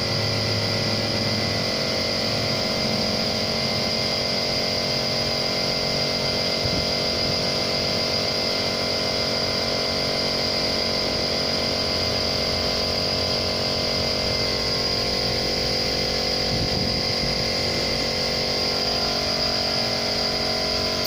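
A small motor-driven machine running steadily: a constant hum with a high whine over it, unchanging until it cuts off abruptly at the end.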